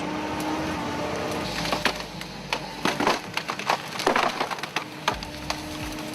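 Wood cracking and splintering as a machine's grapple cutting head cuts through tree trunks, a quick run of sharp cracks over the machine's steady mechanical hum.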